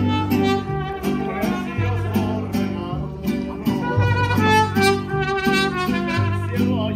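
Live mariachi band playing. Deep guitarrón bass notes move under steadily strummed guitars, and a violin melody rides on top.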